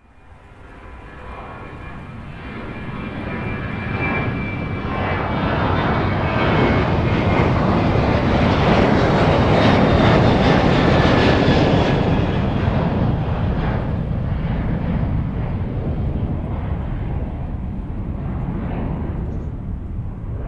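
Boeing 737 Next Generation's twin CFM56-7B turbofans at takeoff power. The sound builds from the start, is loudest about halfway, then slowly fades, with a deep rumble under a high fan whine.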